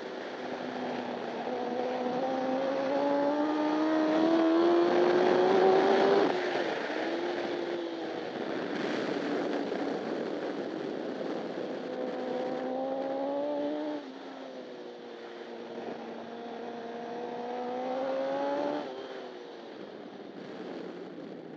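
Honda CBR1000RR superbike's inline-four engine at racing speed, heard onboard: the engine note climbs under acceleration, drops sharply about six seconds in, then climbs and falls twice more, with a steady rush of wind noise underneath.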